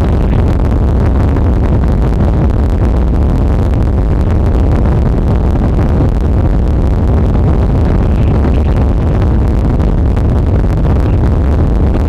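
Strong wind blowing on the microphone: a loud, steady low rumble that does not let up.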